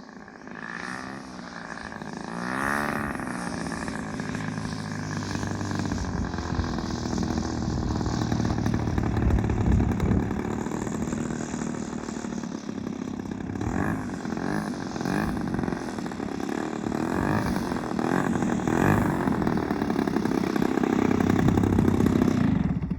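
Aerobatic airplane's propeller engine in flight. Its pitch slides up and down with the passes and throttle changes, and it grows louder toward the end before cutting away.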